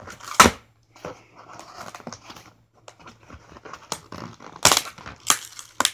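Scissors cutting and tearing through packing tape on a cardboard box: soft crinkling of tape and cardboard, broken by sharp rips or snips, one about half a second in and three close together near the end.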